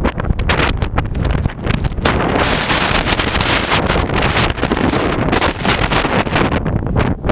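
Strong storm wind buffeting the microphone with a loud, gusty rumble. A harder gust hits about two seconds in and lasts until near the end.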